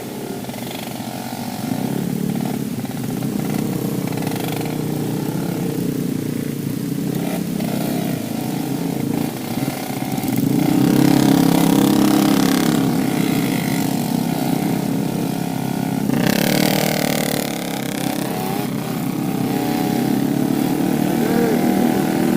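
Yamaha RX King's two-stroke single-cylinder engine running under way, its pitch rising and falling with the throttle, loudest a little before halfway. Twice a louder rushing hiss swells over it.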